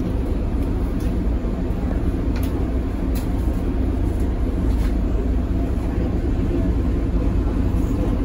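Tatra KT4D articulated tram running, a steady low rumble with a few faint clicks.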